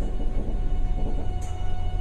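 Cabin sound of a JR 383-series limited-express electric train running slowly into a station: a low rumble with a steady whine of several held tones, and a short hiss about one and a half seconds in.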